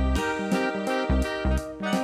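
Upbeat background music: keyboard and plucked-string notes over a steady low beat.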